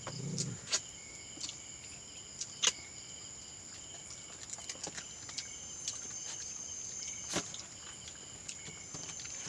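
Steady, high-pitched chorus of night insects, several pitches trilling together, with a few sharp clicks over it, the loudest about two and a half seconds in and another near seven and a half seconds.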